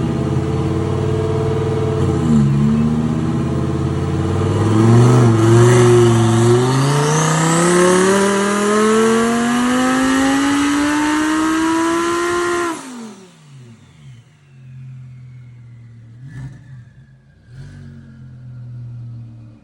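Twin-turbocharged Audi R8 Gen2 V10 accelerating hard: after two brief dips in revs, the engine note rises steadily for about seven seconds in one long pull, then cuts off suddenly as the throttle is lifted and falls away to a much quieter low running.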